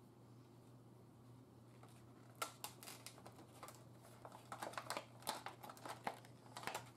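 Stiff plastic blister packaging being pried and torn open with pliers: irregular crackling and snapping that starts about two and a half seconds in and grows busier, over a low steady hum.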